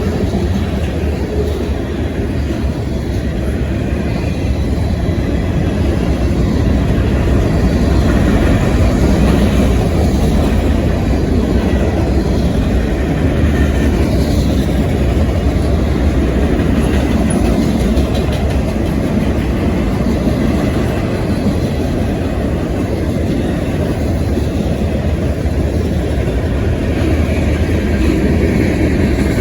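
A train passing, its cars rolling along the rails with a steady loud rumble.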